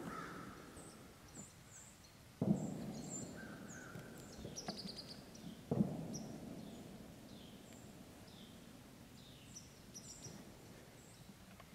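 Two distant shotgun shots from goose hunters, about two and a half seconds in and again about three seconds later, each rolling away in a long echo. Small birds chirp faintly throughout.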